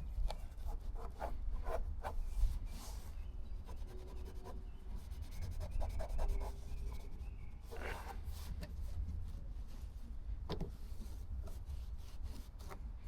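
Hands working on car parts: rubbing and scraping with scattered light clicks and knocks, the loudest knocks about eight and ten and a half seconds in, over a low steady rumble.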